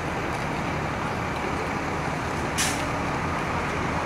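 City transit bus driving slowly across a parking lot, its diesel engine running with a steady rumble, and a short hiss about two and a half seconds in.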